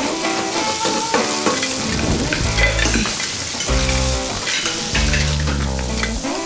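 Shrimp sizzling and frying in steel sauté pans, a steady crackling hiss, under music with a changing bass line.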